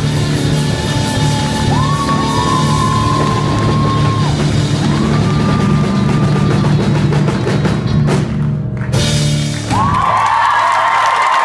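Live rock band of female vocalist, electric guitars, drums and keyboard playing out the end of a song, the singer holding long high notes that slide up into pitch. About ten seconds in the band stops, leaving a held high note with audience whoops and the start of cheering.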